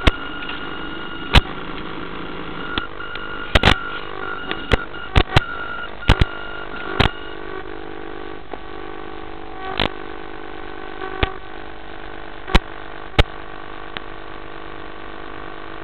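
Small electric drive motor of an RC model boat running steadily, a hum of several fixed tones picked up by the onboard camera in the cabin. A dozen or so sharp clicks and crackles break in at irregular moments.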